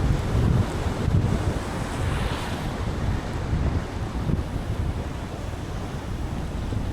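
Car driving on a wet road in the rain: a steady low rumble and hiss of tyres and rain, growing quieter toward the end.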